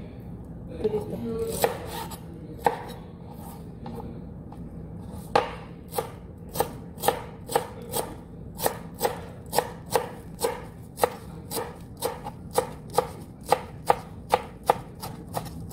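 A kitchen knife chopping parsley: a few scattered cuts, then from about five seconds in a steady chop of about three strokes a second.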